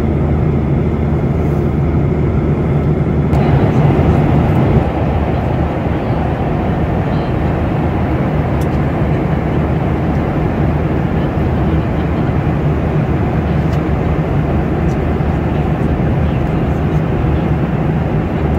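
Steady rushing cabin noise of a jet airliner in flight, with a low engine hum underneath; the sound turns brighter a little over three seconds in.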